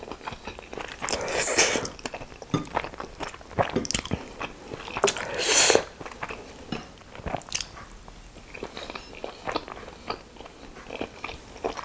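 Close-miked mouth sounds of a person chewing steamed chicken momo dumplings with tomato chutney: wet smacks and small clicks throughout, with two louder, breathy stretches about a second and a half and five and a half seconds in.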